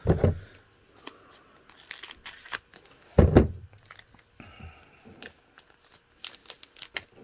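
A trading card pack being torn open, its wrapper crinkling and crackling, with two dull thuds of handling, the louder one about three seconds in.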